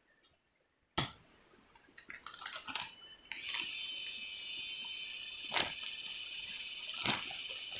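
A sharp knock about a second in, then a steady high-pitched animal drone that sets in abruptly and holds, broken by two more sharp knocks.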